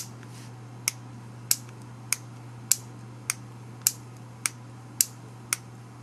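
Squire CP1 combination padlock's shackle release button being pressed over and over, giving a sharp click about every 0.6 seconds, ten in all: the audible click of the lock 'half opening'.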